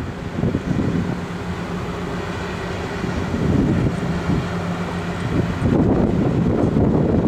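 Low, steady drone of a large ship's engines as the vessel passes close by, with a constant hum running through it. Wind buffets the microphone, growing louder near the end.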